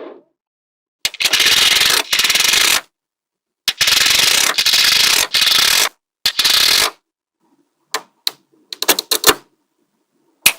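Small magnetic balls clattering against each other in three long runs of fast clicking, then a few single sharp clicks as balls snap together near the end.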